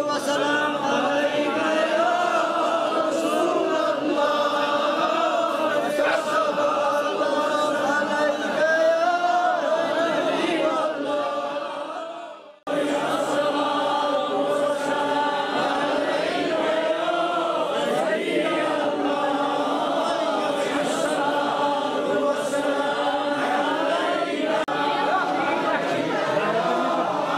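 Congregation of men chanting a prayer together in unison, many voices on one slow melodic line. The chanting fades out about twelve seconds in and comes back suddenly.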